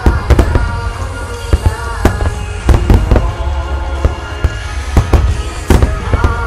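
A wide barrage of aerial firework shells (starmine) goes off in quick succession. Sharp bangs come irregularly, often several a second, with deep rumbling booms between them. Music plays over loudspeakers underneath.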